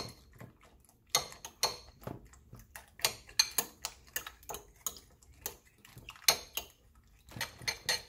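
Metal utensil beating eggs in a bowl: quick clicks of the utensil against the bowl's side, about two or three a second, with short pauses.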